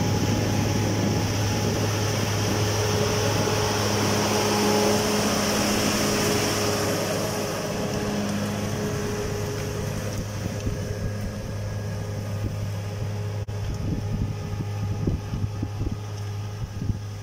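New Holland T6080 tractor's diesel engine running steadily under load while pulling a disc harrow through tilled soil. It grows fainter in the second half as the tractor moves off, with gusts of wind on the microphone near the end.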